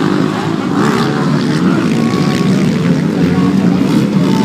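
Motocross bike engines running, their pitch rising and falling.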